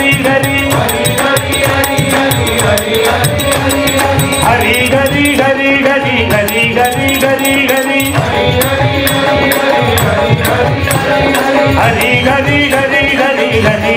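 Live devotional bhajan: a male lead voice singing with instrumental accompaniment and percussion keeping a steady beat.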